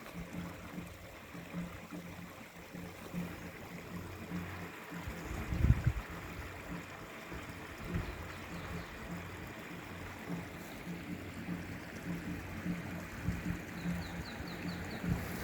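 Clear mountain stream trickling and babbling steadily, with irregular low bumps and one louder thump about six seconds in.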